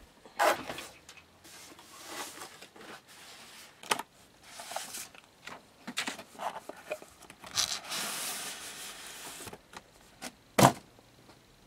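Cardboard parcel being handled and torn open: bouts of rustling, scraping and tearing, with a knock about half a second in and a sharper, louder knock near the end.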